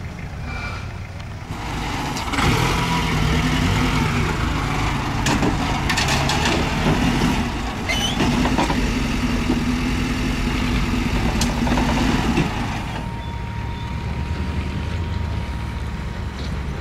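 Small Suzuki 4x4 engine revving under load while crawling over rock, with a few sharp knocks along the way. It drops back to a steadier, quieter idle about two-thirds of the way in.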